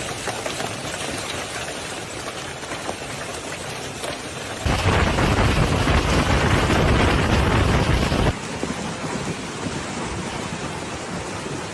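Hailstorm: hail and heavy rain falling as a dense, steady rush of noise, much louder for about three and a half seconds in the middle.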